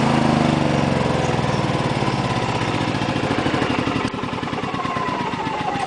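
Yamaha portable generator engine running, then shut off about four seconds in. It winds down with slowing engine pulses and a falling whine.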